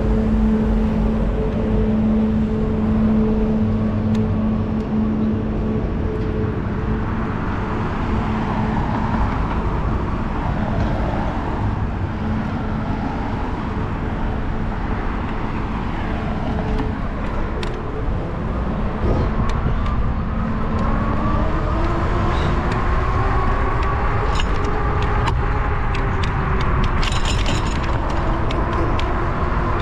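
Wind and road noise from riding a bicycle through city streets with car traffic around, a steady hum fading after about six seconds, and light rattling clicks near the end.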